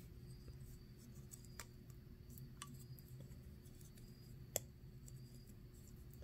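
Small 3D-printed plastic parts being handled and fitted together, giving faint, scattered clicks, with one sharper click about four and a half seconds in.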